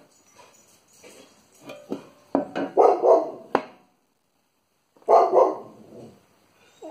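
A dog barking, a run of several barks then another burst about two seconds later, with a few light knocks of the steel blade on the bench.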